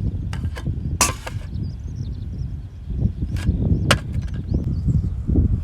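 A few sharp knocks or clacks, irregularly spaced, over a steady low rumble.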